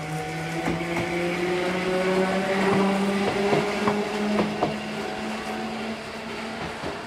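Electric train's motor hum rising slowly in pitch as it pulls away, with scattered sharp clicks.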